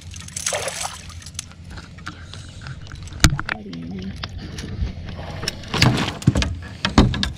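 A hooked catfish splashing at the surface as it is netted, followed by sharp knocks and clatter as the landing net is swung over the side and set down in the boat, the loudest knock a few seconds in and several more near the end.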